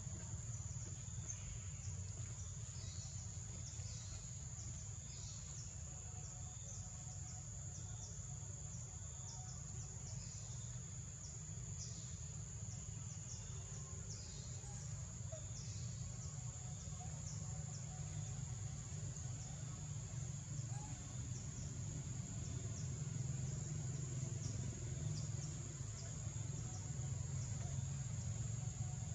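Forest ambience: a steady high-pitched insect drone, with scattered short falling bird calls over a low background rumble.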